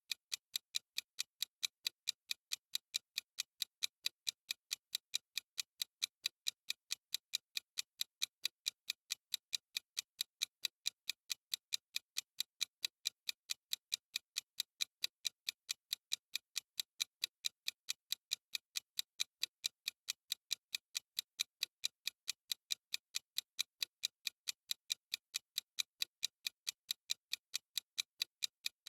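Clock-style ticking sound effect of a countdown timer: sharp, high ticks, perfectly even, a few every second.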